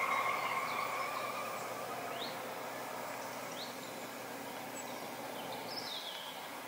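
Steady outdoor ambience with a few short, quick bird chirps, and a steady hum that fades away in the first couple of seconds.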